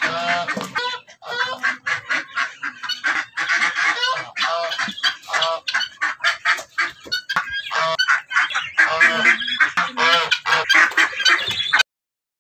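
Domestic geese honking over and over, many calls overlapping. The sound cuts off suddenly near the end.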